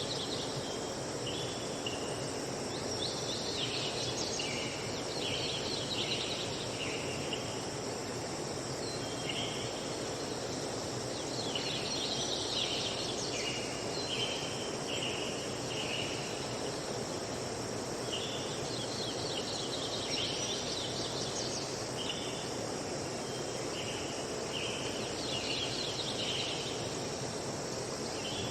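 Forest ambience: birds singing in short bursts of chirps that recur every seven or eight seconds, over a steady high insect drone and a constant low rushing background.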